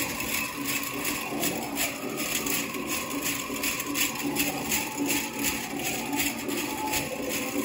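Rows of metal cones on a jingle dress clinking and rattling with each dance step, a shimmering rhythm of about three or four shakes a second.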